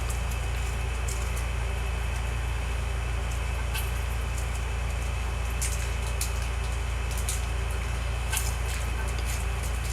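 Scattered sharp crunching clicks of green mango being chewed, over a loud, steady low hum.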